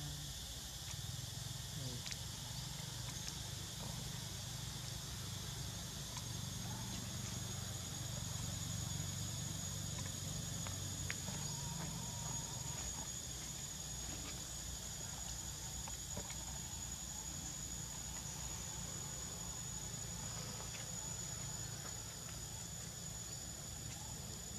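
Steady drone of forest insects: a thin high-pitched whine that holds one pitch throughout, over a softer hiss and a low rumble, with a few faint ticks.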